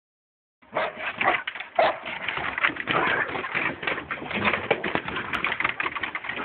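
Several Samoyed dogs vocalizing and scuffling right at the phone's microphone. It is a dense, restless run of noises that starts just under a second in.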